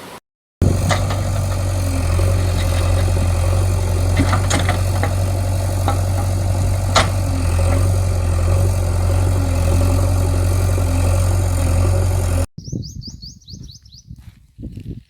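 A heavy engine running steadily at idle with a deep, even hum that cuts off abruptly near the end, followed by a bird's quick series of high chirps.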